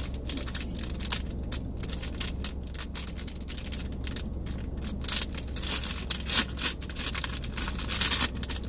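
Clear plastic gift bag crinkling and rustling in the hands as it is worked open, the crackles growing louder and busier about halfway through, over the steady low hum of the car.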